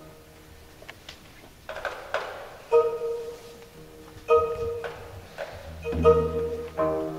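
Instrumental background music: a tune of struck, sustained notes, with a low bass growing stronger about six seconds in.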